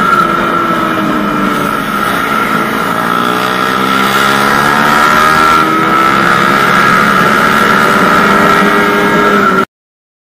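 Suzuki Satria FU's single-cylinder 150 cc engine running hard at road speed, its pitch dipping slightly and then climbing as the rider accelerates, with a steady high whine above it. The sound cuts off abruptly near the end.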